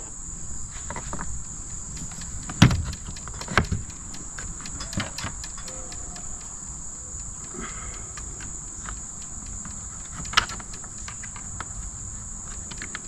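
A few sharp clicks and knocks as a trolling motor is refitted to its transom mount and the clevis pin is pushed through the pivot, the loudest knock about two and a half seconds in and another near ten seconds. Crickets chirp steadily throughout.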